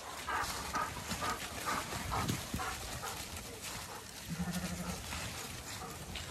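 A flock of Zwartbles sheep trotting over muddy, leaf-strewn ground, giving a run of short irregular hoof sounds, with one short low sheep bleat about four seconds in.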